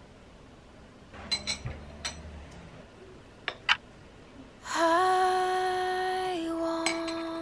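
A spoon clinks a few times against a small ceramic bowl of flan. About five seconds in, a held humming note starts, drops once in pitch and slowly fades.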